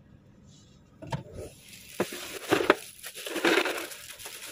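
Goods being packed into a car: a few sharp knocks and clinks starting about a second in, then rustling as things are shifted and stacked.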